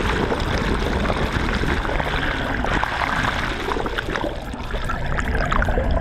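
Water rushing and gurgling around a submerged microphone beside a moving boat's hull, over a steady low rumble.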